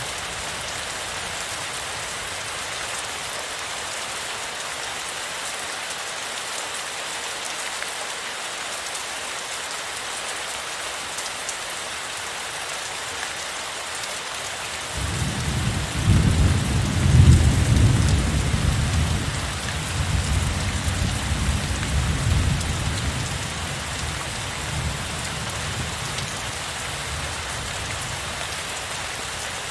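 Heavy rain falling in a steady hiss. About halfway through, a long rolling rumble of thunder comes in, loudest a couple of seconds after it starts, and dies away over about eight seconds.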